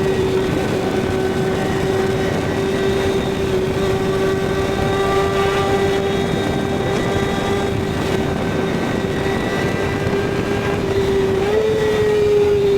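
Kawasaki ZX-6R inline-four engine holding a steady, high-revving tone while under way, over wind and road noise. The pitch steps up slightly near the end.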